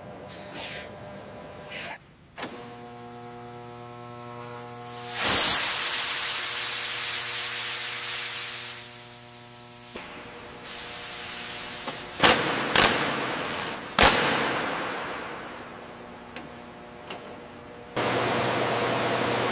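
Stretches of steady hiss with a droning hum underneath for several seconds, broken by a few sharp clicks, and a sudden step up into louder hiss near the end.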